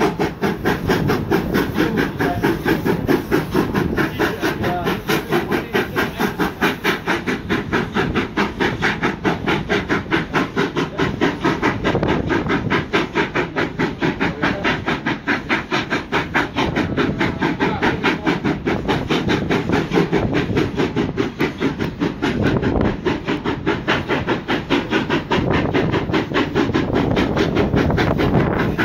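South African Class 15F steam locomotive working hard up a grade, its exhaust beating in a fast, even rhythm, heard from a coach behind it along with the coach's wheels running on the rails.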